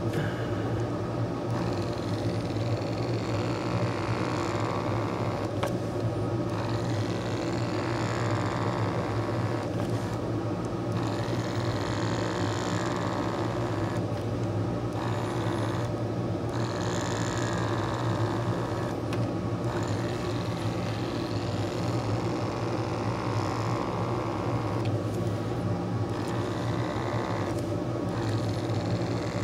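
Small electric motor humming steadily, with a hiss of air over it that cuts out briefly every few seconds.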